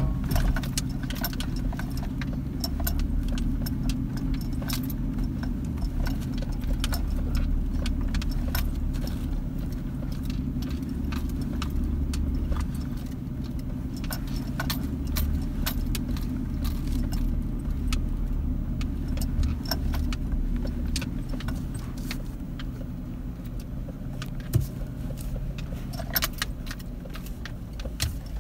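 Jeep driving with its engine running steadily, with frequent rattling and jangling clicks over it.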